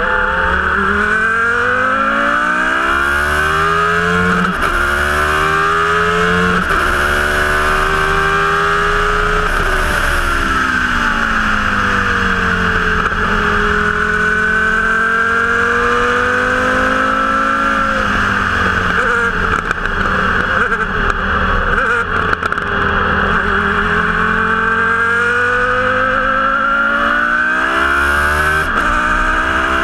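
Formula 1 car's engine heard from the open cockpit at speed: the revs climb through the gears with sharp upshifts, fall away in long stretches as the car slows for corners, then climb again, over steady wind and road noise.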